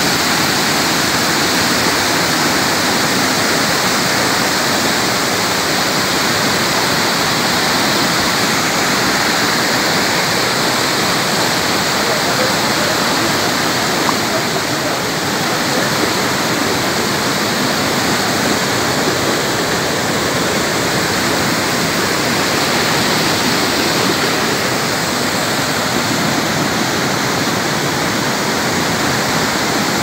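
Waterfall: whitewater cascading over rock slabs, a loud, steady, even rush of water.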